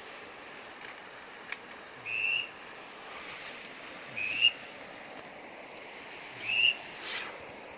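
Whistle duck call blown in short, slightly rising notes, three times about two seconds apart, over a steady background hiss.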